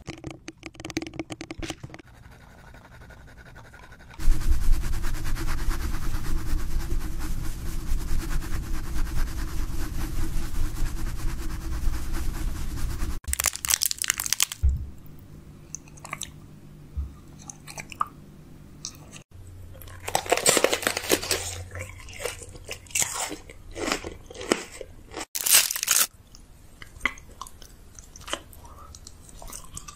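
Close-miked eating sounds: crunchy food being bitten and chewed. A long dense run of crunching early on gives way, after a cut, to quieter chewing and a few clusters of loud crisp bites.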